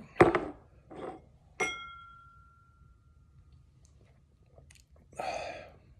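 A sharp knock, then a whiskey glass struck about a second and a half in, ringing clearly for a second or so as it fades; a short breathy sound follows near the end.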